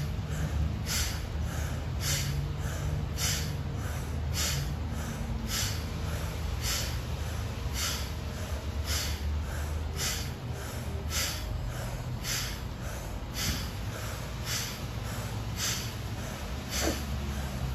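Rapid, forceful exhales snorted out through the nose in an even rhythm of about two a second, each a short sharp puff driven by pulling the belly in.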